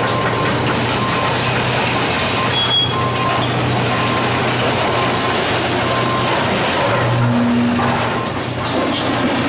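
John Deere excavator running under load as its demolition grapple handles a mass of twisted steel framing and sheet metal, with a steady engine hum under crunching and scraping of metal debris. A backup alarm beeps faintly about once a second.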